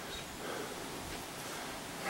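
Steady, faint outdoor background hiss with no distinct sounds in it.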